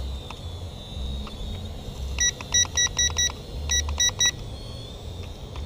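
Handheld remote of an Eachine E58 toy quadcopter beeping in two quick runs of short beeps, about ten in all, starting a little over two seconds in. A low, uneven rumble of wind on the microphone runs underneath.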